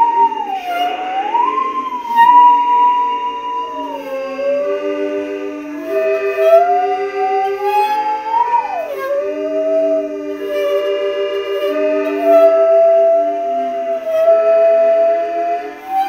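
Musical saw, an ordinary handsaw bent and bowed with a rosined bow, playing a slow tune: one clear singing tone that slides up and down between notes. A steady accompaniment of lower notes runs underneath.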